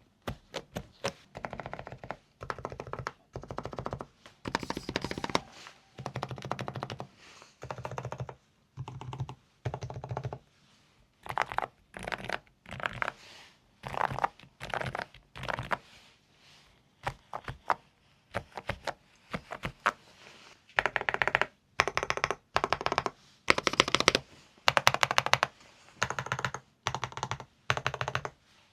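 Typing on a Preflow AK74 PRO full-size mechanical keyboard, with quick runs of keystrokes and short pauses between them.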